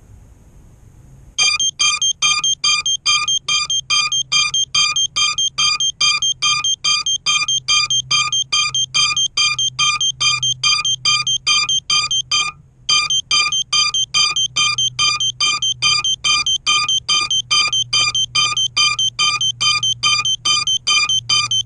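FPV quadcopter's lost-model buzzer beeping, about three short electronic beeps a second, with a brief gap about halfway through. It is the beacon a downed quad sounds so it can be found.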